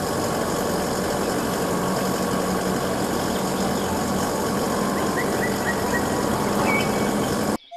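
Isuzu aerial work platform truck running steadily, its engine driving the hydraulic boom that holds and moves the work platform. A few faint high chirps come about five seconds in, and the sound cuts off abruptly near the end.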